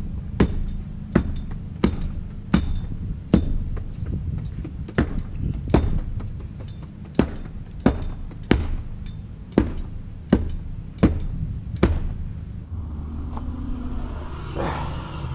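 Steady, rhythmic thuds of concrete stamp mats being pounded into fresh concrete, about one every three-quarters of a second, over a low engine rumble. Near the end the thuds stop.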